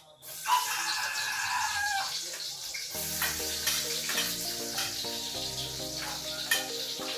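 Food sizzling in hot oil in a wok as it is spooned in, a steady hiss that starts just after the opening. Background music with changing notes comes in about three seconds in.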